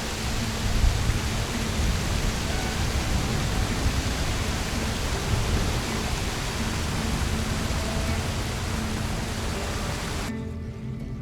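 A loud, steady rushing noise with a deep, unsteady rumble underneath, cutting off suddenly about a second before the end.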